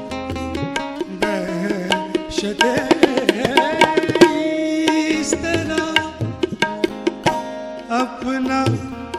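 Instrumental interlude of a live ghazal: tabla playing a steady rhythm of sharp strokes under held harmonium chords and a plucked string instrument's melody.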